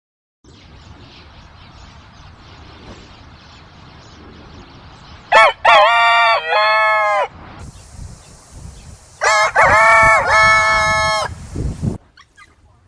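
Rooster crowing twice, each crow about two seconds long, over faint steady background noise.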